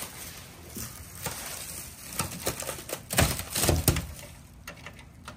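Plastic wrapping crinkling, then a few sharp knocks about three seconds in and a run of light clicks as keys on the Tandy 10's keyboard are pressed; some of the keys need work.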